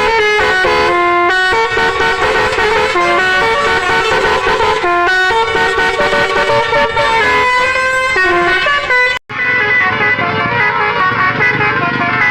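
Bus 'telolet' horns playing quick melodic runs of stepped notes. They break off abruptly about nine seconds in, then more horn tunes follow over a low rumble.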